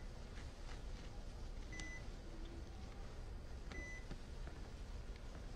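Hospital monitor beeping: a short high beep about every two seconds over quiet room hum.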